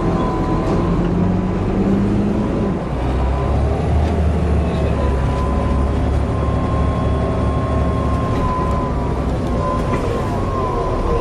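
Volvo B7TL bus's diesel engine running, with a strange whining, wailing noise: a steady high whine that wavers slightly in pitch over a low rumble that grows stronger about three seconds in.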